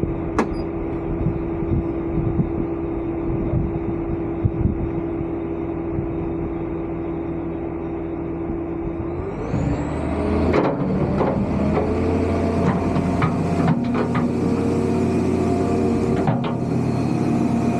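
Excavator diesel engine running steadily, revving up about nine seconds in, followed by repeated metallic clanks and knocks as the machine starts working the pile of concrete and pipe.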